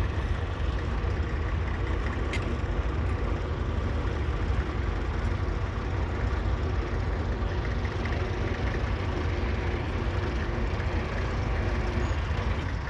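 A 1938 Fordson Model N tractor's 3.6-litre four-cylinder diesel engine running steadily under load.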